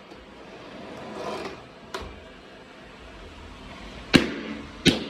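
Roomba robot vacuum running with a steady motor hum, with a sharp knock about two seconds in and two louder knocks near the end.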